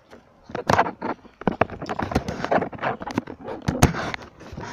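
Phone handling noise: a quick, irregular run of knocks, clicks and rubbing as the phone is moved about close to the microphone.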